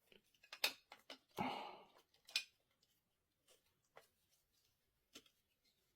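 Scattered sharp metallic clicks of an Allen key turning a stiff, slowly giving screw on a Xiaomi Pro 2 e-scooter, with a short breathy noise about a second and a half in.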